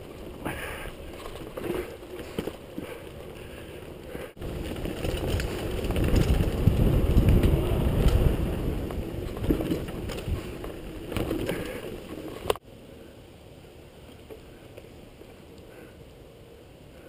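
Mountain bike ridden fast down a dirt trail: wind rushing over the action camera's microphone, with tyre rumble and the bike clattering over bumps. It swells to its loudest in the middle, then drops off sharply about twelve and a half seconds in to a quieter rolling noise.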